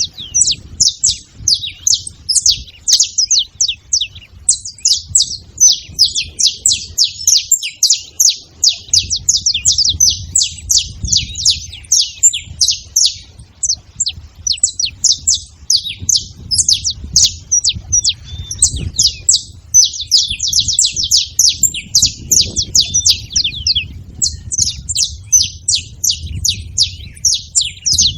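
Saffron finch singing: long runs of rapid, high-pitched chips and trills, broken by a few short pauses.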